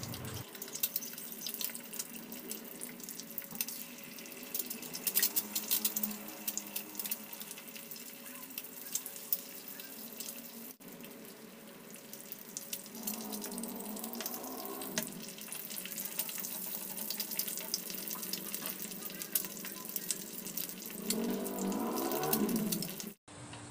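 Quail eggs frying in oil on an electric griddle pan: a steady sizzle dotted with many small crackles and pops. A faint drawn-out voice-like call is heard twice, about halfway through and near the end.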